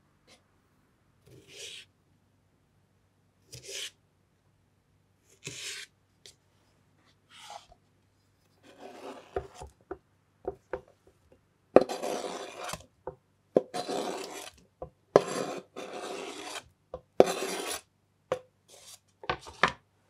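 Kitchen knife cutting cherry tomatoes on a wooden cutting board, one short stroke every two seconds or so. Then, from about halfway, the blade scrapes the cut tomatoes across the board into a glass bowl in several longer, louder scrapes.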